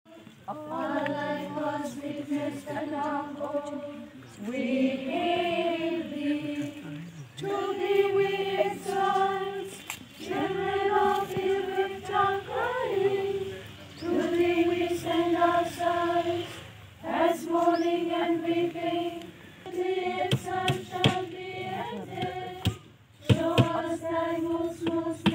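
A group of mourners singing a slow hymn together at a graveside, in phrases of long held notes with short breaths between them.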